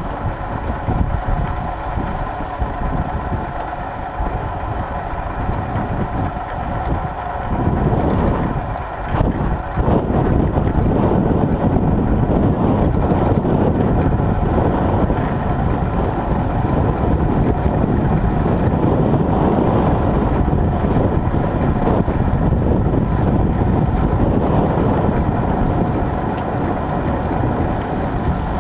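Tractor engine running steadily while ploughing, growing louder about ten seconds in and then holding a steady note.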